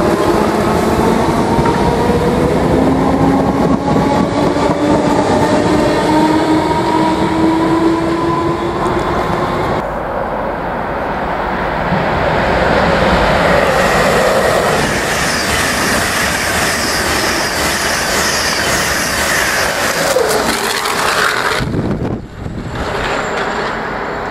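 An electric multiple unit pulling out, its traction motors whining in several tones that rise slowly in pitch as it picks up speed. After about ten seconds, an electric InterCity 225 express comes in on the main line and passes at speed in a loud rush of wheel and air noise, with a falling tone near the end of the pass.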